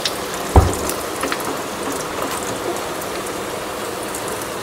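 Hot oil sizzling with many fine crackles around breaded potato patties (aloo tikki) deep-frying in a pan as they are turned over. One loud knock about half a second in.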